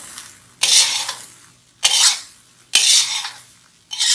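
Metal spatula scraping and turning fried rice in an iron wok: four sweeping strokes about a second apart, each starting sharply and trailing off.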